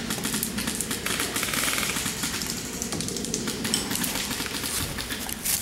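Airsoft guns firing: bursts of rapid clicking rattle, the densest about a second and a half in.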